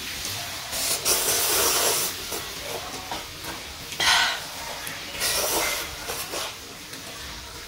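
A person slurping instant noodles off chopsticks. There is a long hissing slurp about a second in, then two shorter slurps around four and five seconds in.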